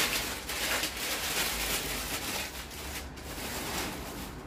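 Irregular rustling and shuffling of paper sheets being handled.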